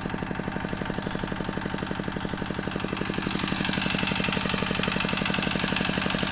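Heavy walk-behind tractor (motoblok) engine running at a steady idle, an even rapid beat of firing pulses. A hiss rises over it about three seconds in.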